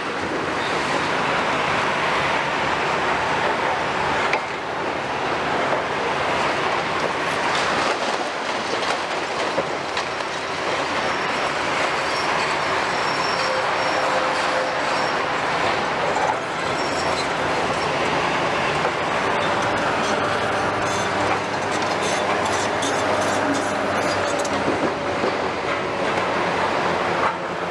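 A Hitachi long-reach demolition excavator working, with steady engine and hydraulic noise under the grinding and crunching of masonry and concrete being torn from a building. Thin metallic squeals come and go, and debris clatters more in the second half.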